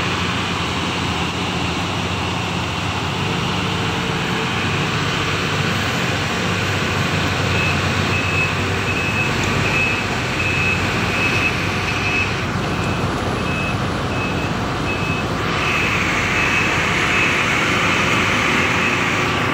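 Sumitomo SH210 hydraulic excavator's diesel engine running steadily as it digs and swings, with a high warning alarm beeping about twice a second from about eight seconds in.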